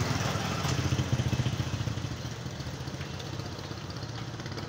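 Small motorbike engine idling with a rapid, even pulse, louder in the first second and a half, then fading.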